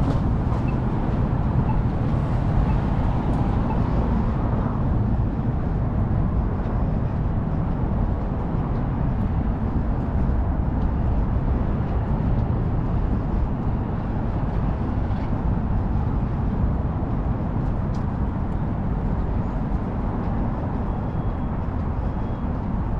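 Steady street traffic: a continuous low rumble of cars passing on a busy road, with no single distinct event standing out.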